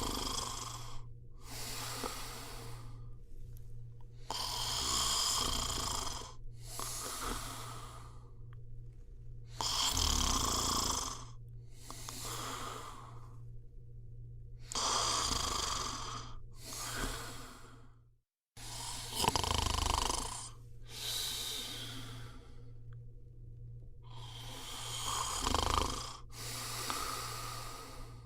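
A person snoring steadily in deep sleep. Each breath comes in two parts, a longer snore followed by a shorter one, repeating about every five seconds, with a brief dropout about eighteen seconds in.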